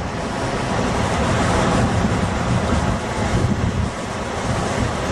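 Rushing river water with wind buffeting the microphone, a steady full noise with gusty low rumble.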